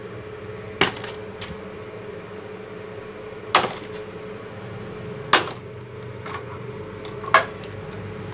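Four sharp knocks, a second or two apart, as a small cut block of wood is handled and knocked against the metal table and fence of a miter saw, over a steady faint hum.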